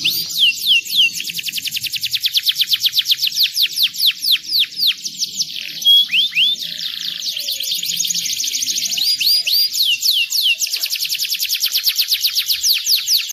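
Yellow domestic canary singing: long rolling trills of fast, repeated downward-sweeping whistled notes, about ten a second, broken by a few slower swooping notes about six seconds in.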